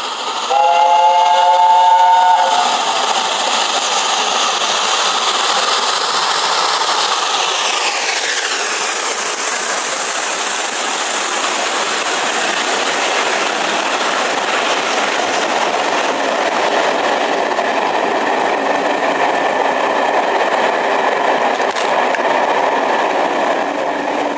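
LNER A4 steam locomotive 4464 'Bittern' sounds its chime whistle for about two seconds as it approaches. It then runs past with a rush of steam and rail noise that drops in pitch as the engine goes by, about eight seconds in. After it the train of coaches rolls past steadily.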